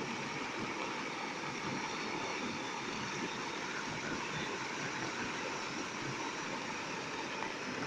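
Heavy rain making a steady rushing noise, even and unbroken.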